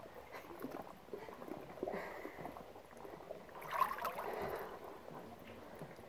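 Cave-pool water sloshing and splashing in small irregular bursts as someone moves through it, louder about four seconds in.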